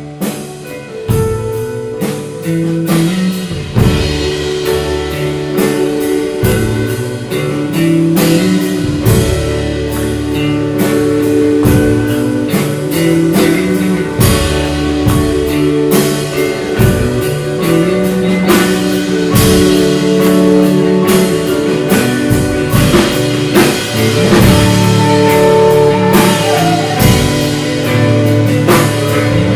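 A live rock band playing an instrumental passage without vocals: guitar over a steady drum-kit beat.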